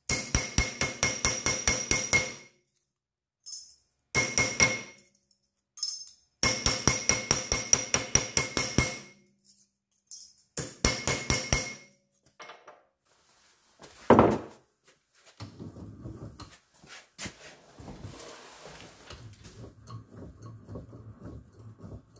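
Hammer blows on a piece of sheet steel being bent along a marked line for a rust-repair patch panel: several runs of quick strikes, about five a second, each run with a ringing metallic tone. About fourteen seconds in comes one loud knock, followed by quieter handling noise.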